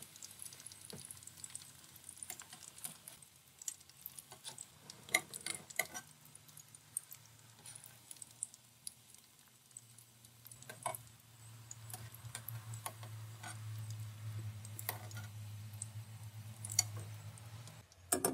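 Faint clicks and light taps of a metal slotted spatula against a wire mesh strainer and the steel pan as fried chicken pieces are lifted out of the oil, with light pattering of draining oil. A low hum comes in about halfway through.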